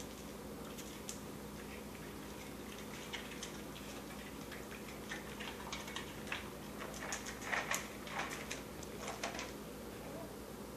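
Scattered light clicks and crunches from a dog eating puffed baby snacks off a tile floor, thickest from about five to nine and a half seconds in.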